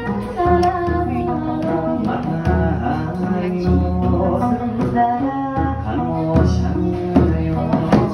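Live Okinawan folk music: a woman singing into a microphone, accompanied by a plucked sanshin and drum strokes.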